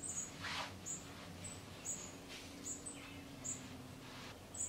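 Faint, short, high chirps repeating every half second to a second, from a small bird. A couple of soft rustles come from movement.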